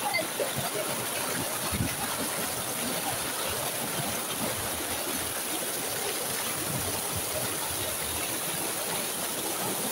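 River water rushing steadily through a narrow rock channel, spilling over boulders in small cascades.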